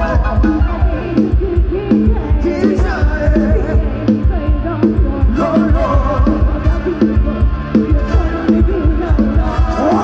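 Dance music with a singing voice and a heavy, fast bass beat, played loud through a Thai rot hae sound truck's speaker stack.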